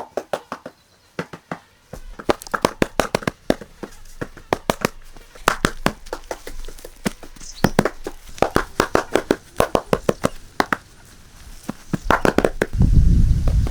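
A rapid, irregular series of sharp knocks and clicks, some in quick runs. A loud low rushing noise starts near the end.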